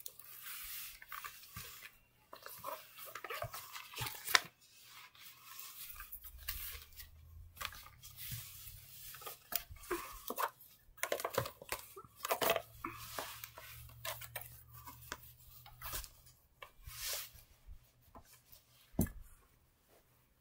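Irregular rustling, scraping and light knocks from plush toys and hands being moved about on a carpet, with a sharp knock about four seconds in and another near the end.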